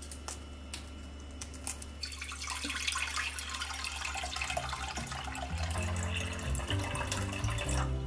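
Water poured from a plastic pitcher into a small saucepan: a steady splashing pour that starts about two seconds in and stops just before the end. Before it, a few light clicks.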